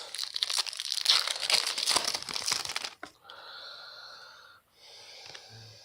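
A trading-card pack wrapper being torn open and crinkled: about three seconds of dense crackling, then a fainter rustle.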